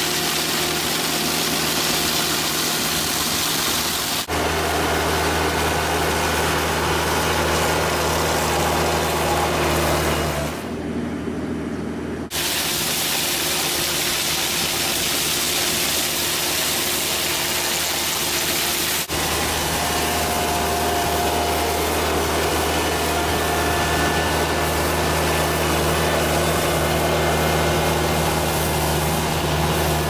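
Engine of a compact street-cleaning machine running steadily while its front-mounted rotary weed brush scrubs along the paved kerb edge, a steady hissing scrub over the engine hum. The sound changes abruptly several times, thinner and quieter for a couple of seconds about ten seconds in.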